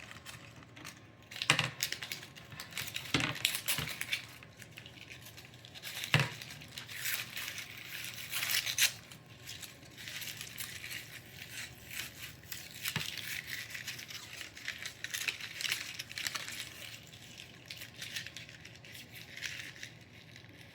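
Protective paper being picked and peeled off an acrylic panel, crinkling and tearing in short irregular bursts. A few sharp clicks of fingernails on the acrylic come in the first half.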